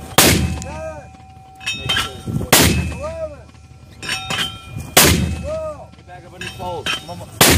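81mm mortar firing four rounds in quick succession, one sharp, loud report roughly every two and a half seconds.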